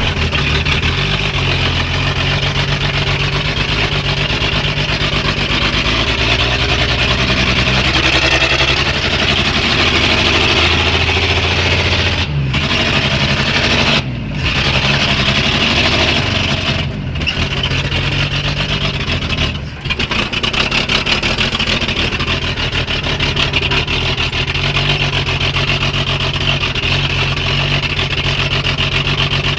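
Engine of a 1942 Chevrolet boom truck running as the truck drives, heard from inside the cab. The sound dips briefly a few times near the middle.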